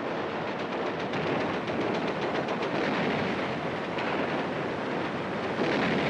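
Rapid machine-gun fire over a continuous noisy battle din, with louder surges about four seconds in and again near the end.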